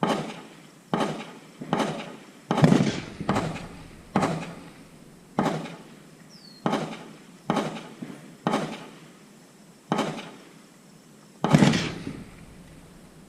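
Gunshots at a shooting range, about a dozen single shots in a slow, uneven string, each followed by a short echoing tail; two of them, about two and a half and eleven and a half seconds in, are heavier than the rest.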